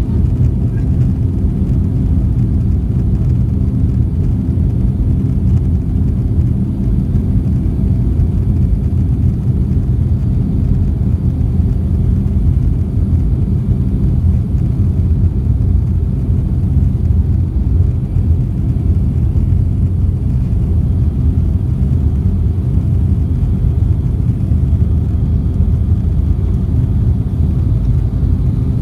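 Steady low rumble of a Boeing 757-200 airliner heard from inside the passenger cabin: engine and airframe noise with no clear rise or fall.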